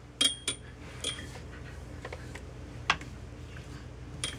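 Clothes hangers being knocked and clinked together by a baby's hands: about five sharp clicks, some with a short metallic ring, scattered irregularly, over a faint low hum.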